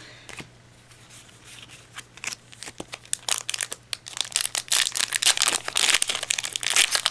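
Yu-Gi-Oh booster pack's foil wrapper being handled and torn open by hand: a few light clicks at first, then loud, dense crinkling and tearing from about four seconds in.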